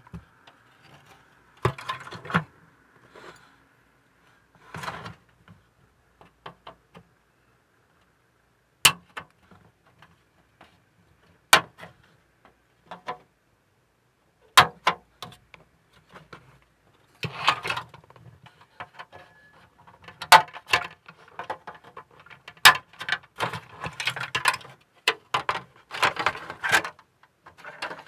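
Plastic scale-model ship hull parts and sprue being handled, rubbing and clattering, with a few sharp clicks spread through the first half. The handling grows busier and more continuous from about halfway in.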